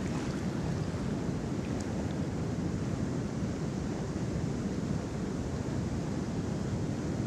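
Steady rush of river water pouring over a low dam, a constant low roar, with wind buffeting the microphone.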